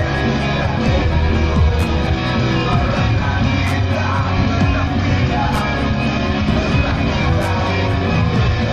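Loud music with a heavy, steady bass, played through a large parade sound system.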